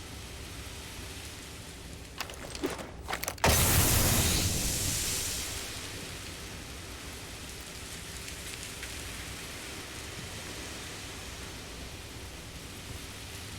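A few clicks, then a sudden loud hiss of gas being released that fades out over about two seconds, over a steady background hiss: a healing-gas release sound effect.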